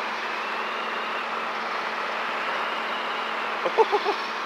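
Robinson R22 helicopter in level flight, heard from inside the cabin: a steady drone of engine and rotors with a constant low hum. A few short voice-like blips sound near the end.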